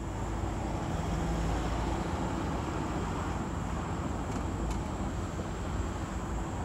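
Train running, a steady rumble with a faint low hum throughout.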